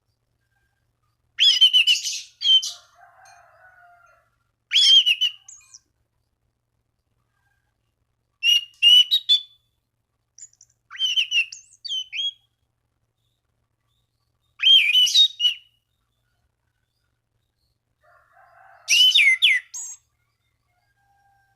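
Anis cendana thrush singing in short bursts of quick whistled notes, six phrases of about a second each with pauses of a few seconds between them.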